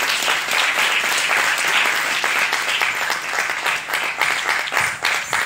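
Audience applauding: dense, steady clapping that keeps up at an even level.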